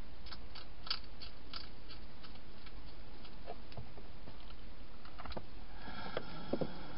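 Wild hedgehog crunching dry food inside a plastic feeding box: a run of short, crisp clicks a few a second, then a few louder knocks near the end.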